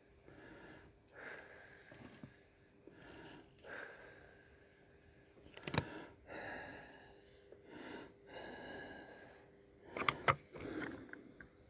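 Close breathing and sniffing of a person near the microphone, in soft swells about once a second, with a sharp click about halfway through and a quick cluster of clicks near the end.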